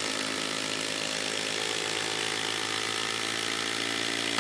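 Ridgid Octane quarter-inch hex impact driver hammering steadily at its highest mode while driving an 8-inch lag screw into a log.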